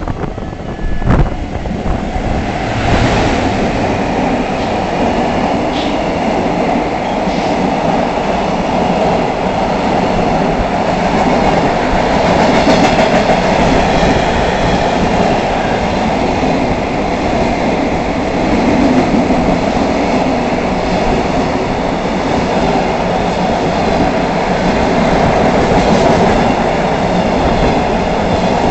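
A JR Freight EF210-300 electric locomotive passing through the station, followed by a long string of freight wagons rolling by. There is a steady loud rumble with wheel clatter that comes up sharply at the start as the locomotive arrives.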